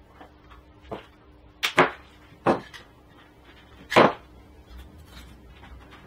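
A handful of sharp clicks and knocks from small hand tools and coax cable connectors being handled on a workbench while coax cables are terminated. Two come close together near two seconds in, and the loudest is about four seconds in.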